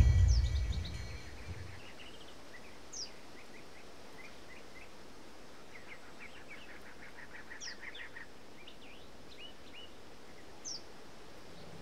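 Wild birds chirping and twittering, with a sharp falling whistle call three times. A low rumble with some steady tones dies away in the first second and a half.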